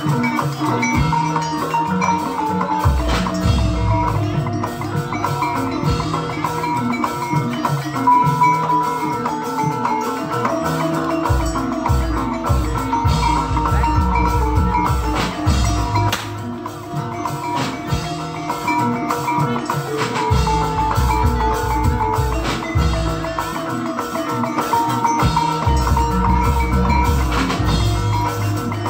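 Live Javanese jaranan gamelan music: ringing bronze metallophone notes over drumming. The heavy low drum part comes in and drops out several times.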